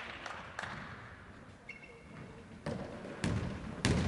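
Faustball bouncing and being caught on a wooden sports-hall floor: a few separate thumps, mostly in the second half, after the last scattered claps at the start. A brief high squeak near the middle.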